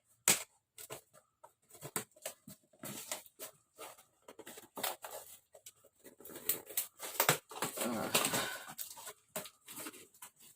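Packaging being torn and rustled open by hand: irregular crackles, rips and clicks, with a longer tearing rustle about eight seconds in.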